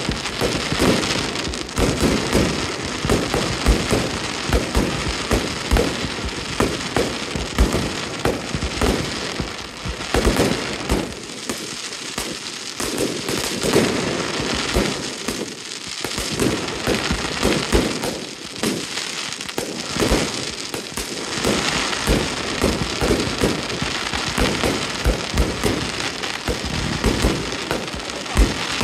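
Fireworks display: many aerial shells bursting in quick succession with crackling stars, the bangs following one another almost without pause.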